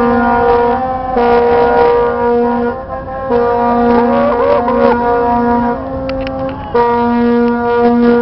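Ship's horn sounding four long, steady blasts of one deep tone with short breaks between them. A second, wavering tone rises and falls over the third blast.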